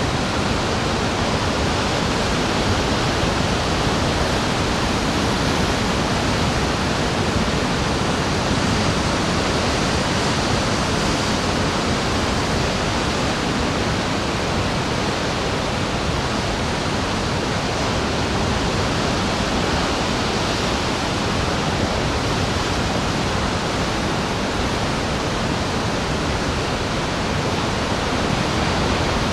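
Steady, even rushing of ocean surf, a continuous wash with no separate waves standing out.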